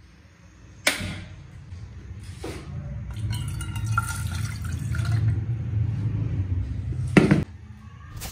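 Water poured into an empty aluminium saucepan, starting suddenly about a second in and growing louder as the pan fills. It ends with a short knock and stops abruptly near the end.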